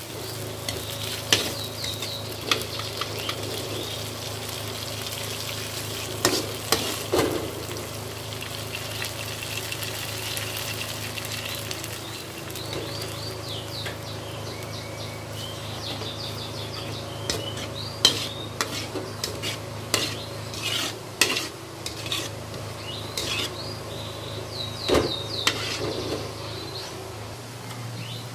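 Balado sauce sizzling in an aluminium wok while a metal spatula stirs it, with sharp clinks and scrapes of metal on the pan now and then over a steady frying hiss.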